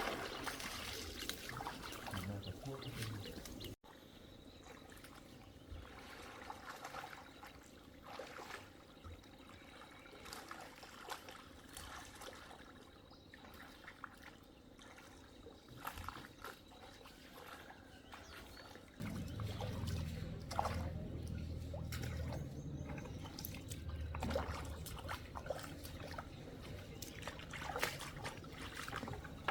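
Water trickling and splashing, with small clicks throughout; a sudden cut about four seconds in, and a low steady rumble joins from about two-thirds of the way through.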